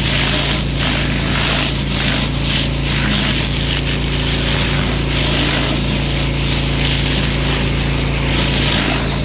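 Pressure washer running steadily, its motor droning under the loud hiss of the water jet, which swells and fades as the spray moves across the surface.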